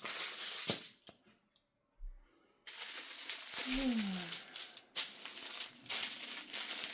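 Small plastic bags of diamond-painting resin drills crinkling and rustling as they are handled, with a short gap of near silence about a second and a half in and a brief hum from the presenter about four seconds in.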